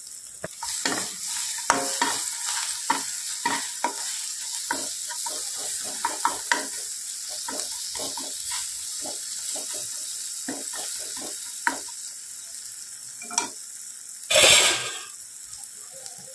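Onion, tomato and ground spices sizzling in hot oil in a non-stick kadai while a steel spatula stirs and scrapes the pan in quick, irregular strokes, frying the masala. There is one louder clatter near the end.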